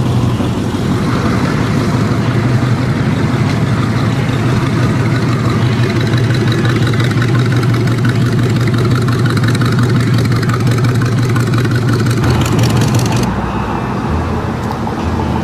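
Car engine idling with a steady low hum, the sound turning abruptly quieter and thinner about thirteen seconds in.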